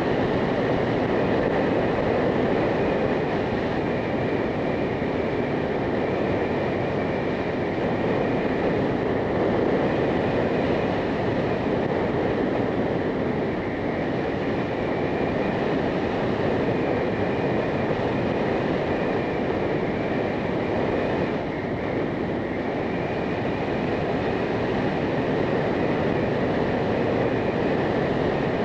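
Motorcycle under way at a steady speed: a dense, steady rush of wind and road noise, with no revving or gear changes.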